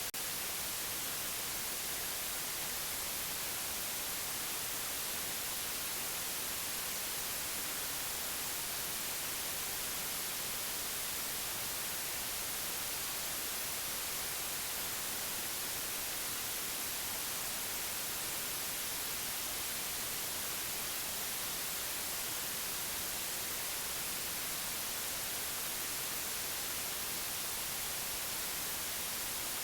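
Steady white noise: an even, unbroken hiss, brightest in the treble, that does not change.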